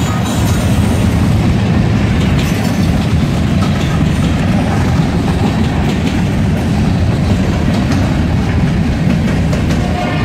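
Freight train passing close by: a diesel locomotive goes by, then covered hopper cars roll past with a steady low rumble and the clicking of wheels over the rails.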